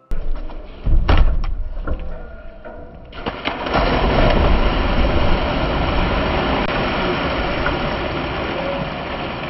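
Water splashing as several people run into a lake and plunge in, over a low rumble. A few separate splashes come in the first two seconds, then loud, continuous splashing from about three seconds in.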